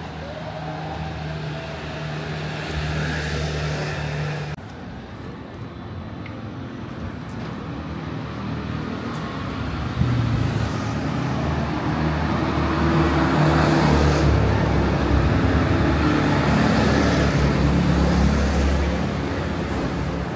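Motor vehicle engines running in nearby street traffic. The sound drops abruptly about four seconds in, then an engine grows louder about halfway through, stays loud and eases off near the end, as a vehicle passes close by.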